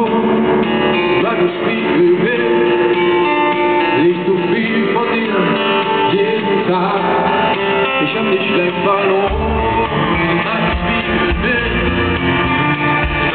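Live pop-rock band playing a ballad, heard from the arena audience: guitar, drums and keyboard, with a male lead singer. The bass fills in about nine seconds in.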